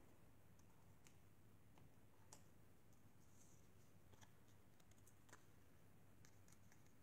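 Near silence, broken by a dozen faint, scattered light clicks as a small cardstock circle is handled by fingers.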